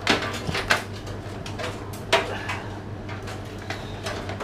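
Clicks and knocks of hands handling parts and cables inside a desktop PC case, about three sharp ones with the loudest about two seconds in, over a steady low hum.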